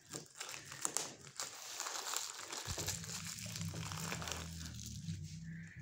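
Clear plastic wrapping crinkling as it is pulled off by hand and crumpled, a steady run of small crackles.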